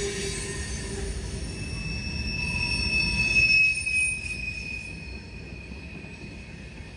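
CSX freight train rolling past, its wheels squealing against the rail in thin, high drawn-out tones over a low rumble from the cars. The sound dies down over the last couple of seconds.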